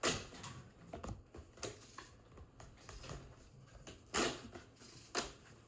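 Cardboard box and plastic packaging being handled: a series of sharp taps, clicks and rustles, loudest about four seconds in and again a second later.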